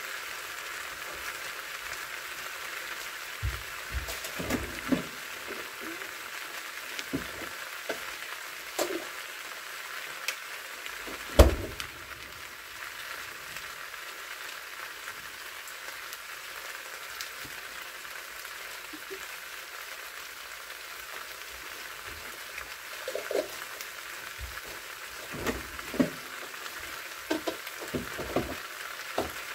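Stir-fried sundae and cabbage sizzling steadily in a frying pan, with scattered knocks and clatters. The loudest knock comes about eleven seconds in, and there is a cluster of them near the end.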